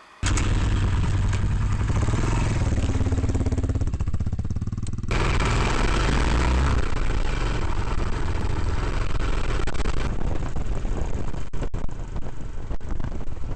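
Adventure motorcycle engine running as the bike is ridden along a rough trail, with heavy low rumble. The sound changes abruptly twice, about five and ten seconds in.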